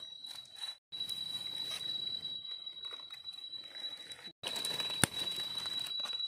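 Dry leaf litter rustling and crackling as hands work over the forest floor, with a sharp snap about five seconds in. A steady high-pitched whine runs underneath, and the sound cuts out completely twice, briefly.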